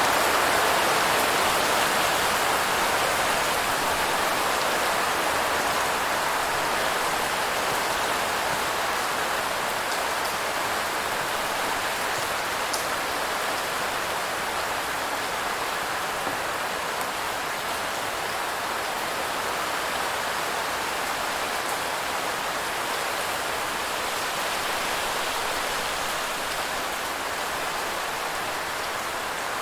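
Steady rain falling in an even hiss, with scattered drops ticking through it, easing slightly over the stretch.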